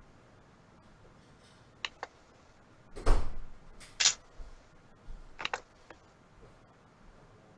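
Scattered small clicks and taps, with a louder knock and rustle about three seconds in and a sharp click a second later.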